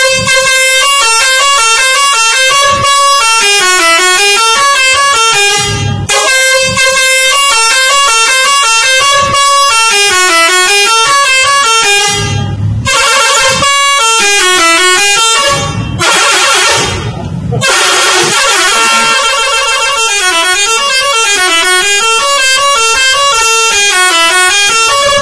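Bus 'telolet' multi-tone musical air horn, loud, playing a fast melody of notes stepping rapidly up and down. It breaks off briefly a few times and then resumes.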